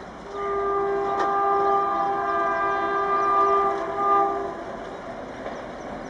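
Twin-tone horn of a WAP-4E electric locomotive sounding one long blast of about four seconds as the train approaches, cutting off about four and a half seconds in, after which the train's running noise carries on.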